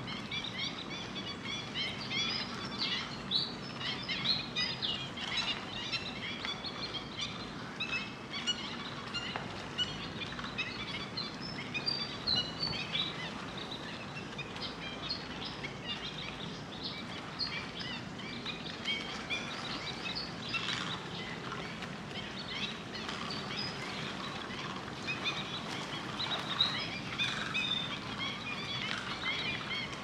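Many birds chirping and calling in a dense, continuous chorus of short high notes, with a low steady hum underneath.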